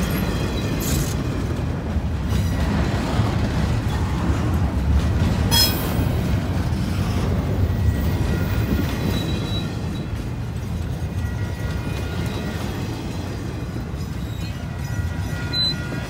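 Double-stack container well cars of a freight train rolling past: a steady rumble of steel wheels on the rail, with an occasional sharp clank, the loudest about five and a half seconds in.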